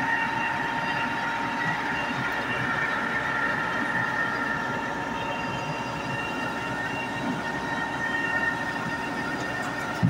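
SANY truck-mounted concrete pump running with its engine and hydraulic drive on, a steady high whine over a constant mechanical rumble.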